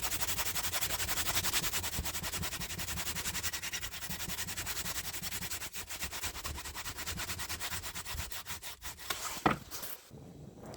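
Rapid, even rasping of an abrasive working the steel rebar punch as it is shaped, many strokes a second, dying away near the end.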